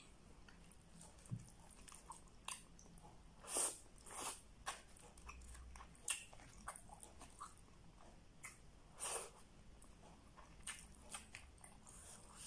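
A person eating chicken adobo and rice by hand and chewing, with irregular wet mouth smacks and clicks.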